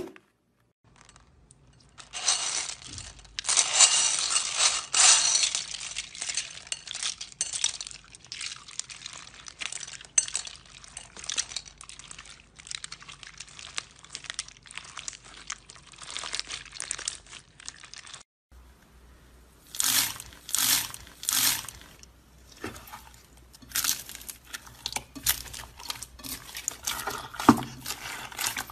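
Hands squeezing, stretching and kneading slime: a continual run of wet crackles and small pops, with slime full of plastic beads in it. After a brief gap there are several louder squelching pops in quick succession.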